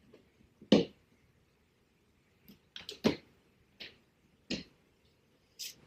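Plastic hood vent (heat extractor) being popped out of a 2019 Mustang GT hood: a string of sharp, uneven clicks and snaps, loudest about a second in and about three seconds in.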